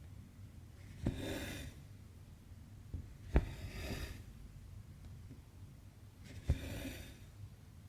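Needle and cotton embroidery thread pulled through 18-count Aida cross-stitch fabric, three times about every two to three seconds: each stitch is a small click as the needle pierces the cloth, then a short swish as the thread draws through.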